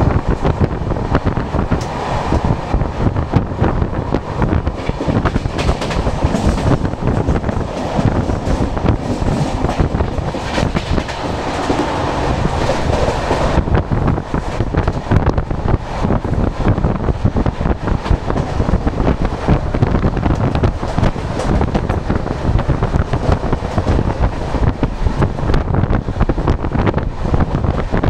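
Moving passenger express coach of the Rajdhani Express, heard from its open doorway: a steady rumble of wheels on rail with many rapid clicks over joints and points, mixed with wind. The high hiss thins about halfway through.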